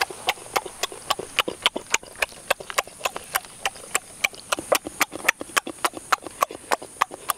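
Wet chewing and lip-smacking as someone eats squid, a sharp smack about three to four times a second.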